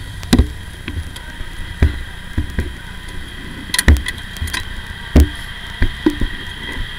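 Irregular knocks and thumps, about ten of them, from a small camera being handled and bumped in a Formula Ford's cockpit, over a steady faint high whine.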